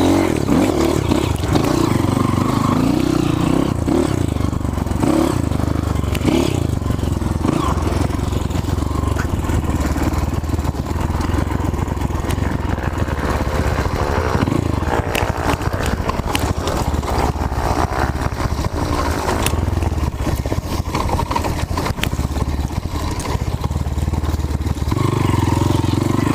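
Trail motorcycle engine running throughout, its pitch shifting with the throttle, with rattling and sharp clicks over it.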